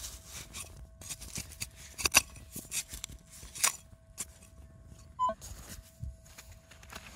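Soil being scraped and picked at by hand and with a digging tool in a dig hole: an irregular run of scrapes and clicks. Under it runs a faint steady metal-detector tone, and a short detector beep sounds about five seconds in.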